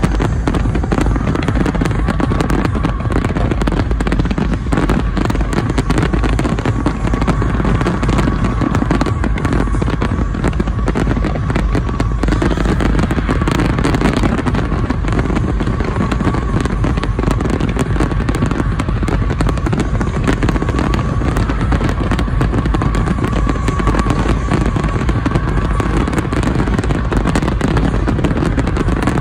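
Aerial fireworks barrage: a dense, unbroken run of shell bursts and crackle, loud throughout with no pauses.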